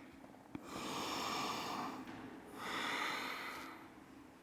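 A woman breathing audibly, two long breaths of about a second each, with a small click about half a second in.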